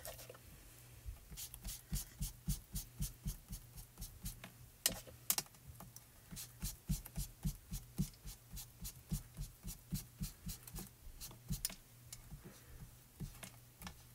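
Small ink blending tool dabbed and swiped over and over onto a paper piece, applying Distress ink: a run of quick, light taps, about two or three a second.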